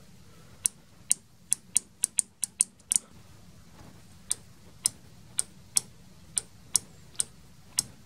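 Microwave oven door-interlock microswitches clicking as their levers are pressed and released by hand. First the old switch, which the owner says is not clicking right and sometimes doesn't click back, gives about nine quick, uneven clicks. Then the new replacement microswitch clicks evenly, about twice a second, each a definite on or off.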